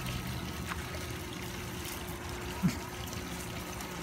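Steady trickling of running water in the background, with a brief short sound about two and a half seconds in.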